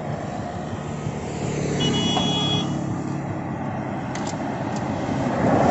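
Old Hero Honda single-cylinder motorcycle engine running as the bike rides up and slows to a halt, with a short high horn-like beep about two seconds in.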